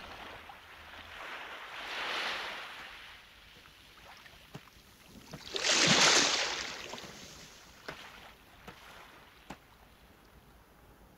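Surf washing onto a sandy beach: two swells of wave noise, a softer one about two seconds in and a louder one about six seconds in, with a few faint ticks in between.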